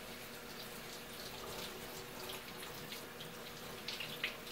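Kitchen faucet running a steady stream of cold water into a stainless steel sink, splashing over squirrel carcasses being rinsed by hand.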